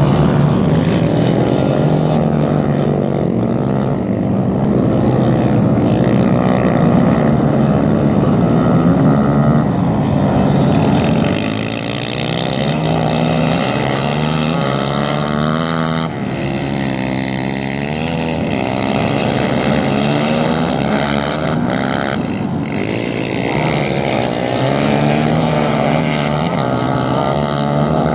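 A pack of racing quads (ATVs) running hard, several engines overlapping and revving up and down as they work around the track.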